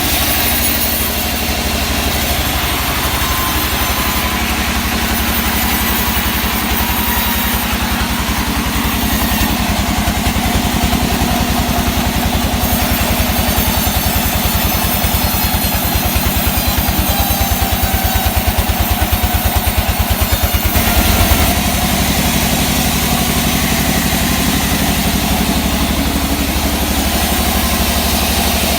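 Engine of a sawmill running steadily with an even, fast low beat, and a short surge about three-quarters of the way through.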